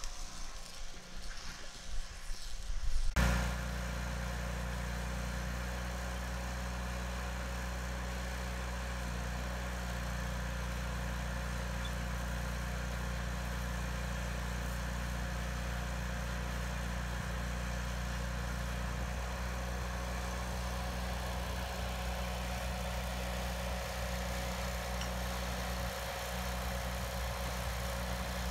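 Trailer-mounted engine-driven welder running steadily, a constant low drone that cuts in abruptly about three seconds in, after some irregular knocks and rustling.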